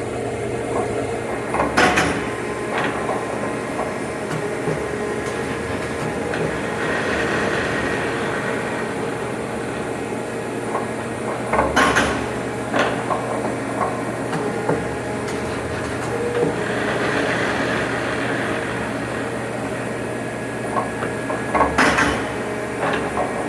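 BHS Torin 5-axis Model 12 CNC spring maker running through its forming cycle over a steady hum, repeating about every ten seconds: a loud clack with a cluster of sharper clicks, then a hissing rush midway between.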